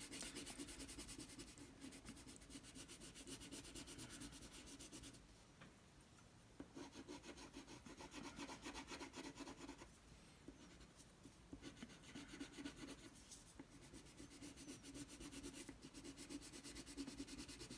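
Wax crayon rubbing on paper in quick back-and-forth colouring strokes, faint, in several spells with short pauses between.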